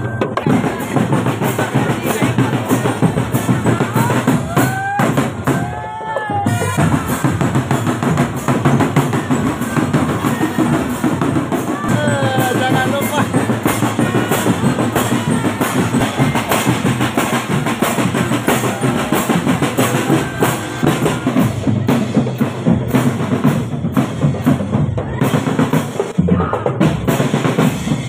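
Marching drumband playing continuously: snare and bass drums beating a steady rhythm with rolls, and a few short sliding pitched sounds above the drums near 5 and 12 seconds in.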